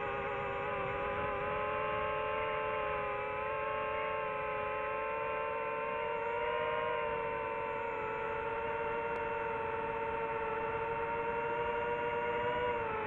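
DJI FPV drone's motors and propellers whining in flight, heard from the drone itself: a steady whine of several close tones whose pitch drifts slightly up and down with throttle, dipping near the end.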